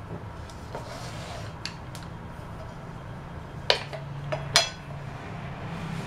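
A small rolling pin and fingers working naan dough on a ceramic dinner plate: soft rubbing and light taps, then two sharp clinks of the pin against the plate about a second apart past the middle. A steady low hum runs underneath.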